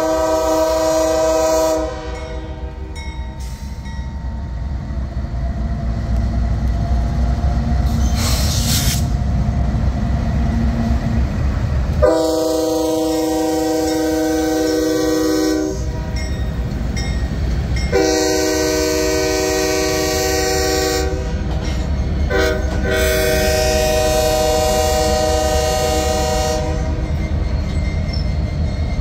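Norfolk Southern diesel freight locomotives passing close by, engines running with a steady low rumble, while the lead unit's multi-note air horn sounds for a grade crossing. One blast ends about two seconds in, a long blast comes about twelve seconds in, and a long, a short and a long blast follow from about eighteen seconds.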